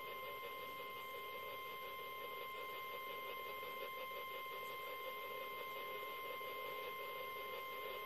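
Long, steady single-pitch alert tone from an Alert Works EAR-10 weather radio's speaker, over a hiss of radio static. It is the NOAA Weather Radio warning alarm tone, sent during a Required Weekly Test ahead of the voice message.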